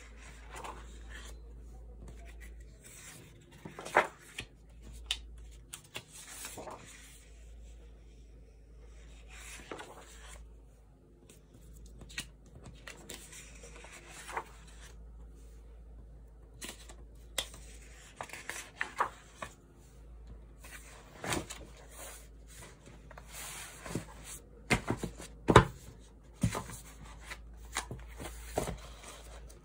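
Sketchbook pages being handled and turned by hand: paper rustling and flapping with scattered sharp taps and clicks, busier and louder in the second half.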